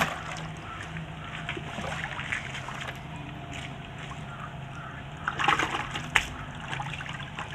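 Live fish thrashing in a plastic bucket of water: sloshing and small splashes throughout, with a splash right at the start, a louder flurry of splashing about five seconds in and a sharp slap just after it.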